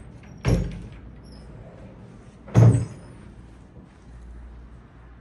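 A door or cupboard door knocking twice, about two seconds apart, each knock with a brief high squeak, over a low steady hum.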